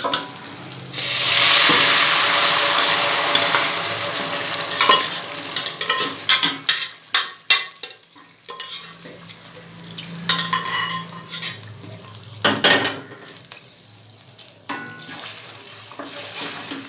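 Cooked turkey and its cooking liquid poured into hot sesame oil in a steel kadai: a loud sizzle starts about a second in and dies down over a few seconds. It is followed by scattered knocks and scrapes as the curry is stirred with a wooden spatula.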